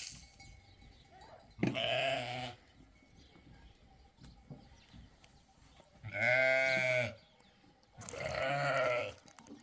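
Livestock bleating three times: each a loud, drawn-out call that bends in pitch, with quiet between the calls.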